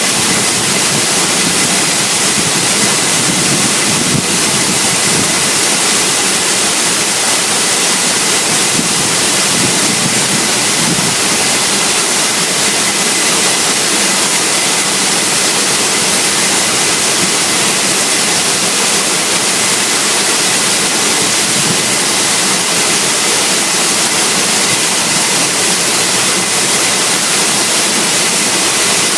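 Waterfall pouring close by: a loud, even rush of falling water.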